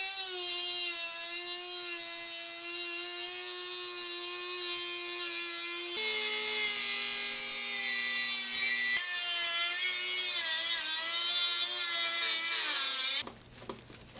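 Handheld electric power tool running at high speed on steel, its motor pitch wavering and dipping under load, with a change in tone about six and nine seconds in. It stops abruptly near the end.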